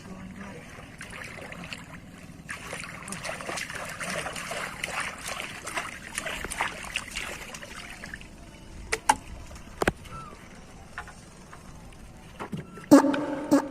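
A crackling hiss swells for several seconds and dies away, then two sharp clicks. Near the end a loud, pitched fart sound effect starts.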